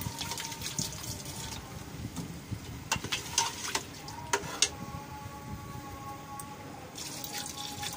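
Water pouring into a pressure cooker of browned beef and spice paste, then a steel ladle stirring it, with a few sharp clinks against the pot about three to four and a half seconds in.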